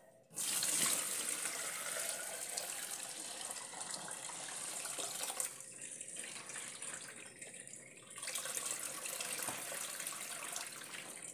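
Whey poured from a pot into a plastic colander in a sink: a steady splash of running liquid, with two short lulls in the middle.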